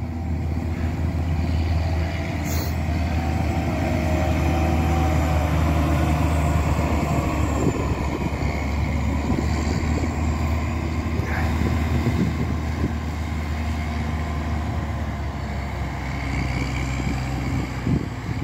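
Diesel engine of a PistenBully 600 snow groomer running steadily under load as the tracked machine pushes snow with its front blade, with the rattle of its tracks over the snow.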